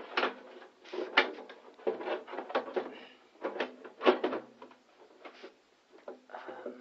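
A power supply being pushed and knocked into place inside a cheap, thin-walled CIT 1015BS computer case: a run of irregular clunks and rattles, loudest about a second in and again around four seconds, thinning out near the end.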